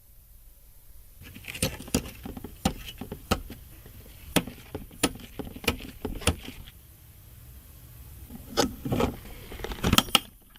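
Small plastic and metal clicks and rattles from DDR5 RAM modules being handled and pressed into the motherboard's memory slots. A pair of sharper clicks near the end fits the slot latches snapping shut.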